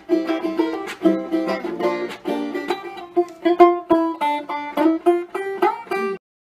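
Channel intro theme music on a plucked string instrument, a quick run of notes that cuts off abruptly about six seconds in.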